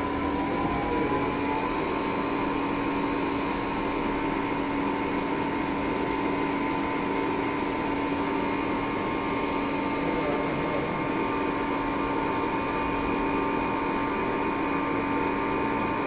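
CNC lathe running steadily: a continuous machine hum with several steady whining tones over a hiss, one tone sliding into a new pitch about two seconds in.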